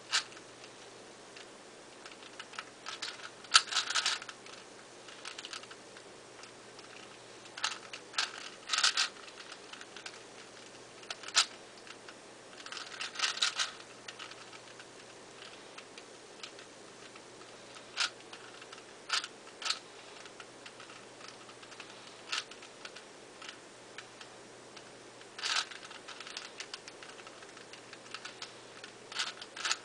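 ShengShou 4x4 plastic puzzle cube being turned by hand, clacking in quick bursts of layer turns with pauses between them.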